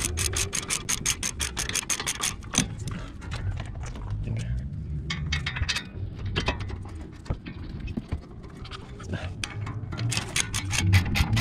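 Hand socket ratchet clicking quickly, several clicks a second, as the brake caliper bolts are wound in. The clicking thins to a few scattered clicks and metal rubbing in the middle and speeds up again near the end.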